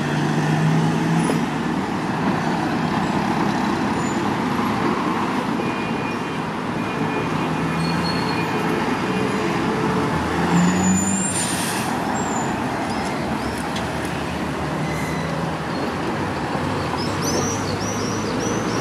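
Steady road traffic at a busy intersection: buses, minibuses and cars idling and moving off, with a low engine hum under continuous road noise. A brief hiss comes about eleven seconds in, and a run of high chirps near the end.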